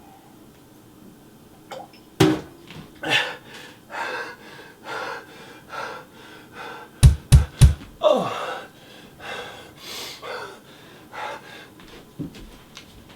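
A person breathing hard in repeated gasps and pants, with three loud, heavy thuds in quick succession about seven seconds in.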